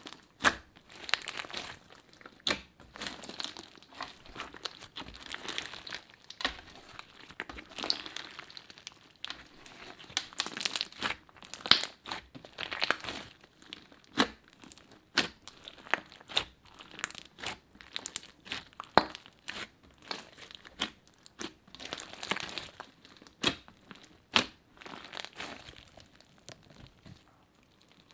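Crunchy slime being squeezed and worked by hand, giving off irregular crackles, sharp pops and crunching.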